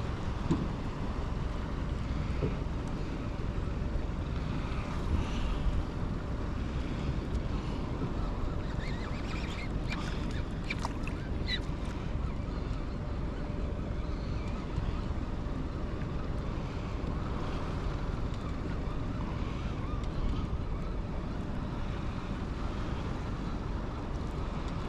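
Wind buffeting the microphone over water lapping against a boat: a steady low rumble and hiss, with a few short sharp clicks around the middle.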